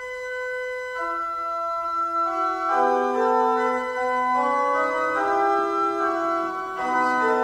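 Slow organ music in held, overlapping notes: a single sustained note first, with further notes joining about a second in and again about three seconds in to build full chords.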